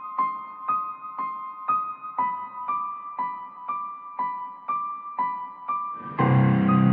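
Background music: a soft electric-piano figure striking notes about twice a second, each ringing away, with a fuller layer of sustained chords coming in near the end.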